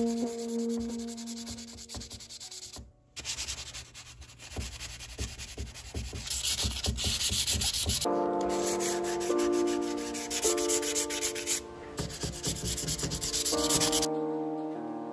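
Hand-sanding painted wood with a 320-grit sanding disc: quick back-and-forth rubbing strokes, with a short pause about three seconds in. Background music comes in about halfway and plays on alone after the sanding stops near the end.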